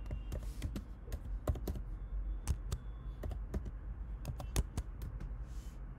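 Typing on a computer keyboard: an irregular run of key clicks, some in quick pairs, as a terminal command is entered.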